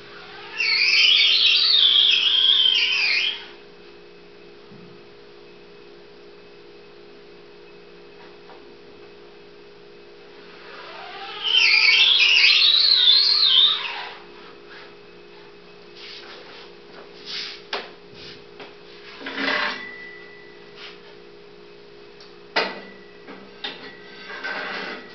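Emulsion scoop coater drawn up the mesh of a screen-printing frame: two squeaky passes of about three seconds each, the pitch wavering up and down. Then light knocks and clicks as the coated frame is handled, over a steady electrical hum.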